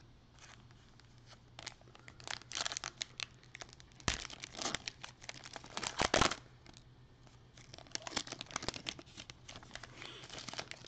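A Panini Prizm trading-card pack's foil wrapper being torn open and crinkled by gloved hands: an irregular run of crackles and tearing, loudest about four and six seconds in.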